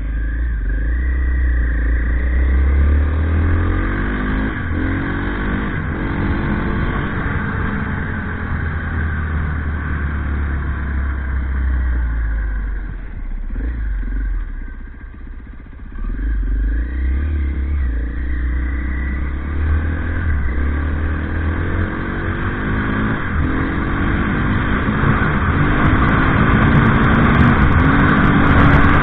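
Motorcycle engine accelerating through the gears, its pitch climbing and falling back with each shift. It eases off about halfway through, then pulls away again, with some rattling near the end.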